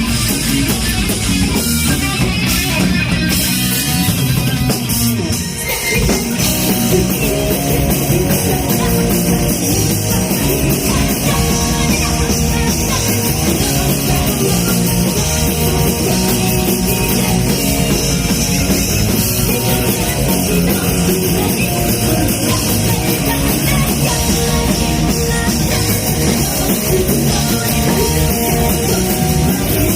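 Heavy metal band playing live and loud, with drum kit and electric guitars, dipping briefly about five seconds in.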